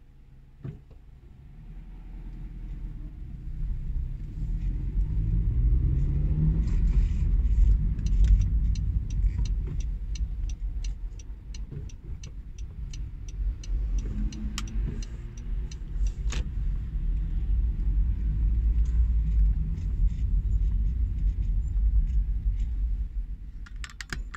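Car engine and road rumble heard from inside the cabin as the car pulls away in slow traffic, the engine note rising over the first few seconds. A regular light ticking runs through the middle for several seconds.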